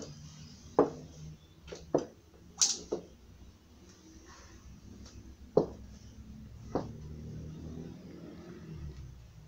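A few sharp knocks and taps at irregular intervals, with a brief hiss about two and a half seconds in, over a low steady hum of the room.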